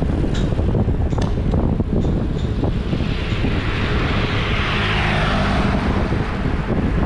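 Wind buffeting the microphone of a camera on a moving bicycle, a steady low rumble mixed with tyre noise on asphalt, with a few light clicks in the first two seconds. Near the middle a motor scooter passes, a hiss that swells and fades.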